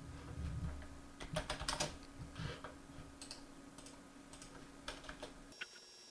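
Faint, irregular keystrokes on a computer keyboard as a terminal command is typed, the clicks busiest in the first couple of seconds.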